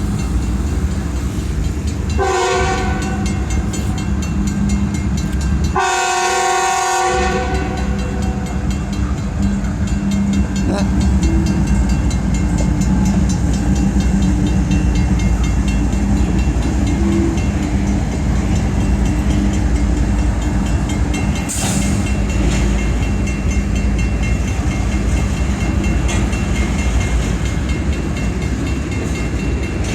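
Train horn with a very weird-sounding tone: a short blast about two seconds in and a longer blast around six seconds. The train then rumbles steadily on past.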